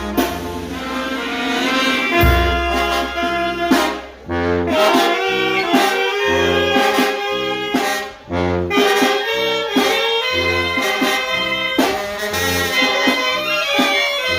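Mexican brass band (banda de viento) playing: saxophones, trumpets and trombones over a low bass line that pulses about once a second. The music drops out for a moment twice, about four and eight seconds in.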